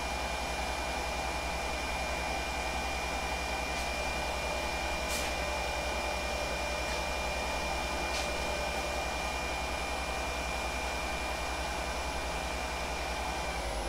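Wood lathe running at high speed with a steady whine, spinning an acrylic pen blank on its mandrel for the final dry polish. The whine cuts off at the very end as the lathe is switched off.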